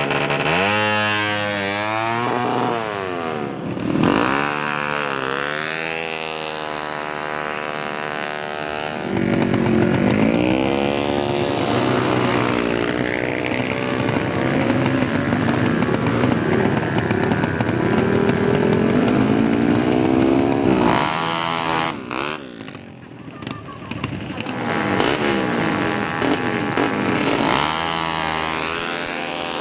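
Drag-racing motorcycle engines revving hard at full throttle, each pitch climbing steeply and then dropping at a gear change before climbing again, with several engines overlapping in the middle.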